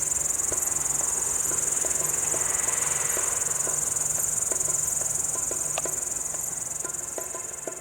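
Many crickets chirping together in a continuous high-pitched trill, with a few faint clicks scattered through it; the chorus fades down near the end.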